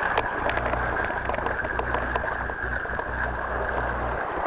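Sea washing against rocks with wind buffeting the microphone, and the steady high whir of a spinning reel being wound in, which stops shortly before the end.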